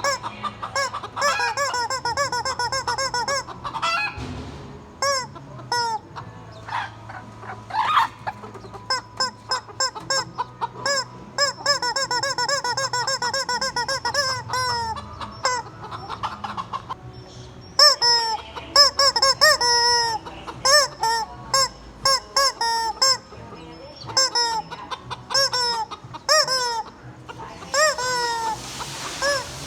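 Chickens clucking continuously: many short calls that rise and fall, following one another several times a second, with shrill high sounds above them.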